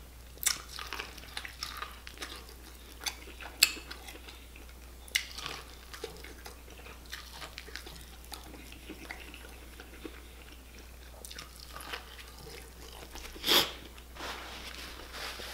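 Close-miked chewing and wet mouth sounds of someone eating a deshelled seafood boil, with scattered sharp clicks and smacks. There is one louder mouth sound about thirteen seconds in.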